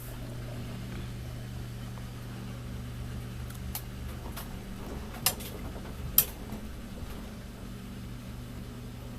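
Samsung Grande washing machine running its rinse cycle: a steady low motor hum, with a few sharp clicks or knocks from the drum in the middle, the two loudest about five and six seconds in.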